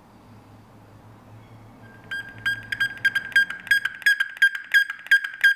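A small handmade electronic sound device, a blue box with knobs and a light, starts about two seconds in, giving a steady train of short, sharp, pitched clicks, each with a brief ringing tone, about three a second. Before that there is only a faint low hum.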